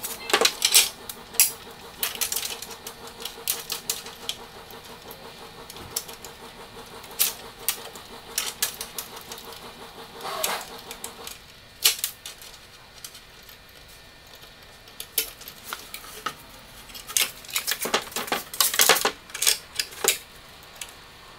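Irregular clicks, knocks and light metallic rattles as a router and its cables are handled and fitted back onto the Maslow CNC sled on a plywood board, busiest in the second half.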